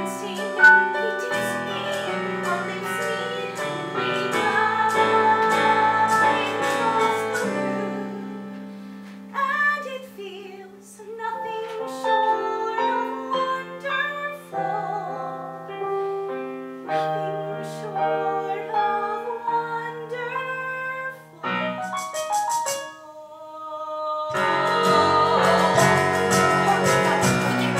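Live piano accompaniment with a woman singing a musical-theatre song. A little after two-thirds through the piano plays a rapid repeated high figure, then it breaks into a louder, fuller passage near the end.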